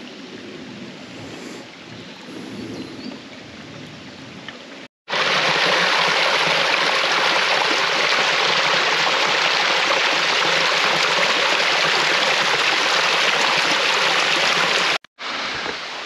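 Small forest stream cascading over mossy rocks: a loud, steady rush of splashing water that starts abruptly about five seconds in and cuts off about ten seconds later. Before it there is only a faint outdoor background.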